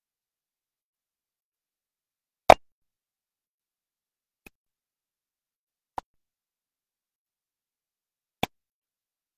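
Four single sharp clicks over otherwise dead silence: a loud one about two and a half seconds in, a faint one near the middle, and two more later, spaced a second and a half to two and a half seconds apart.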